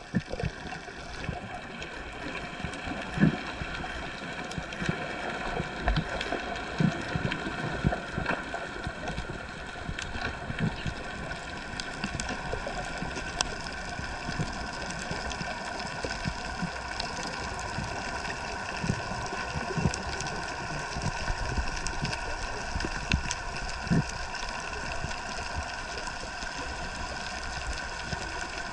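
Underwater ambience recorded by a camera: a steady hiss carrying several fixed whining tones, with irregular low thumps of water moving against the camera every few seconds.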